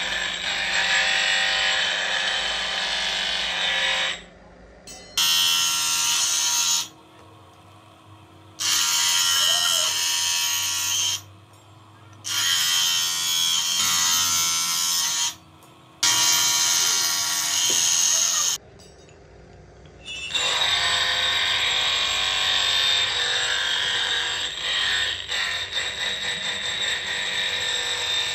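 Bench grinder wheel grinding the steel race of a tapered roller bearing held against it by hand: a steady harsh grinding. It runs for about four seconds, breaks into four shorter bursts with quiet gaps between, and then runs steadily again from about twenty seconds in.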